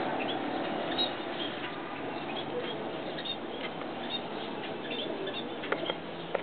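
Young cockatiels in a nest box giving short, high chirps and squeaks over a steady background hiss, with a couple of sharp knocks near the end.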